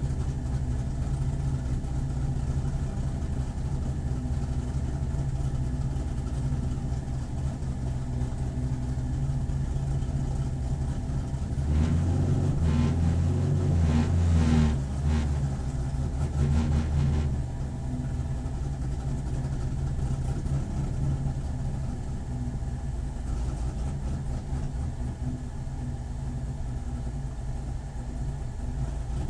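Corvette C7 race car's V8 engine running on track, steady for most of the time, with a louder stretch of hard revving from about twelve seconds in that eases off about five seconds later.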